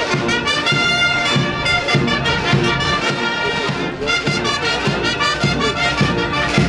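Marching band playing a march: a brass melody over the beat of side drums.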